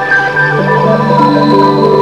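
Instrumental background music: several held notes sounding together, the chord changing a few times.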